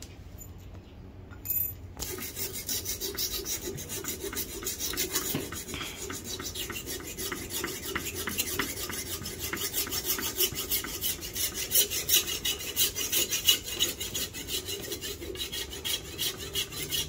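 Machete blade scraping rapidly back and forth across a sharpening stone, a fast run of rasping metal-on-stone strokes that starts about two seconds in and continues without a break.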